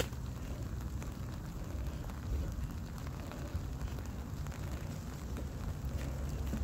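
Light rain falling, with scattered small clicks of drops over a steady low rumble.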